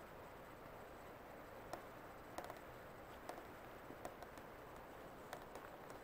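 Near silence: faint steady camcorder hiss, with soft, uneven clicks coming one or two a second.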